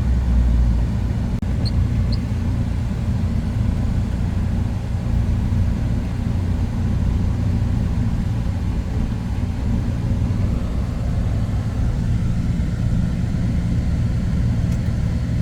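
Pickup truck towing a camper, driving at a steady pace: an even, low engine and road rumble with no change in speed.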